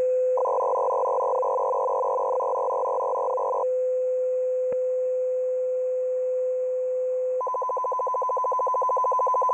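Russian M42b military shortwave data signal heard through a receiver in CW mode. A steady beat tone breaks into a burst of several tones at once lasting about three seconds, starting about half a second in. The steady tone returns, then from about seven and a half seconds in a rapidly pulsing burst of tones begins.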